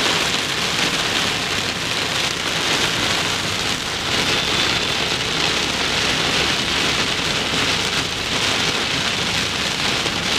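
Heavy rain beating steadily on a car's roof and windshield, heard from inside the cabin.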